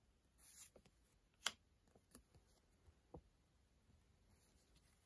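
Faint handling of a stack of paper stickers: a brief soft slide, then one sharp tick about a second and a half in and a few fainter ticks as the stickers are shuffled.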